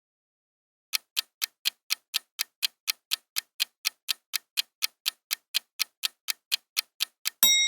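Countdown-timer sound effect: clock-like ticks, about four a second, then a bell ding near the end.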